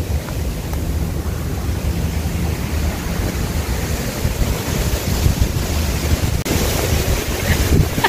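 Wind buffeting a phone's microphone on an exposed hilltop: a loud, gusting rumble that rises and falls.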